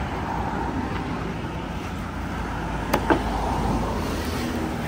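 Steady low rumble of road traffic, broken about three seconds in by two sharp knocks in quick succession from a heavy fish knife striking the wooden chopping block.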